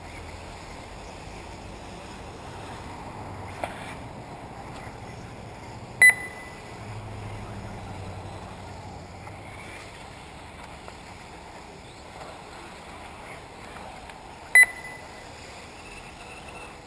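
Short, loud electronic beeps from an RC race lap-timing system, twice, about eight and a half seconds apart, over steady outdoor noise from the track.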